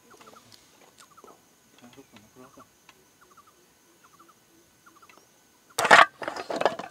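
Faint bird calls in short quick groups, repeating throughout. Near the end, a sudden loud clatter of the aluminium slats of a roll-up camp table top being handled.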